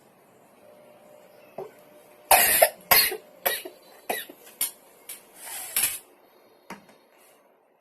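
A woman coughing in a fit of about eight coughs over some four seconds, the first ones the loudest.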